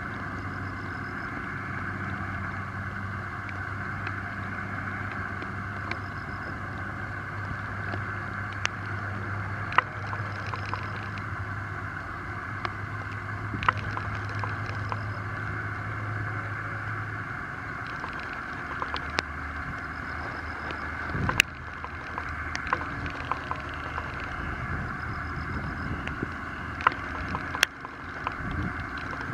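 Small splashes and knocks as a fisherman handles a gill net and weeds in the water at the side of a wooden boat, with two sharper knocks in the second half. Under it runs a steady motor drone, which drops lower a little past halfway, and a steady hiss.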